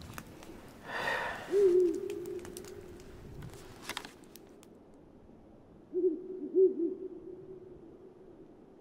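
Two long, low hooting tones, one about a second and a half in and one about six seconds in. Each starts with a wavering wobble and then holds steady on one pitch.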